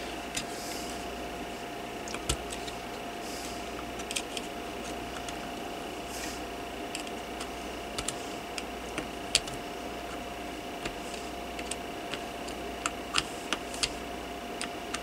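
Scattered light clicks and taps of a plastic fan blade and its retaining clip being handled and pressed onto the motor shaft, over a steady faint hum. The clicks come more often near the end.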